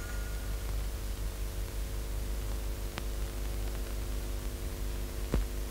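Steady hiss and low hum of an old film soundtrack running with nothing recorded on it. A faint click comes about three seconds in and another near the end.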